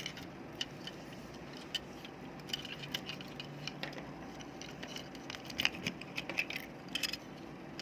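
Light clicks, taps and rattles of a rechargeable flashlight's small internal parts being handled, scattered and growing busier after the first couple of seconds.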